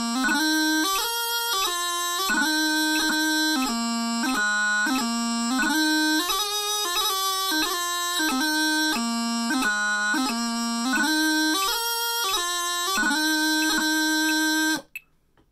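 Highland bagpipe practice chanter playing a strathspey at 90 beats per minute, a reedy melody of short, clipped notes with quick grace notes and no drones. The tune stops abruptly near the end.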